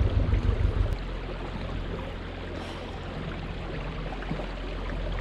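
Outdoor wind and water noise around a canoe on a river: a steady hiss over a low rumble. A heavier buffeting flutter stops about a second in.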